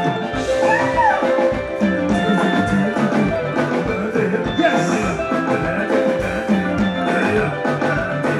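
Soukous dance band playing an instrumental passage: quick, bright electric guitar lines over a steady drum-kit beat.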